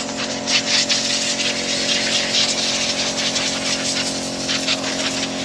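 A motor running steadily, with a rough hiss over it.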